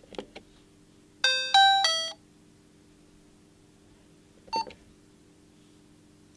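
A LEGO Mindstorms NXT brick's speaker playing a short electronic doorbell chime of four quick tones about a second in, after a few clicks. Another click with a brief tone comes about four and a half seconds in, over a faint steady hum.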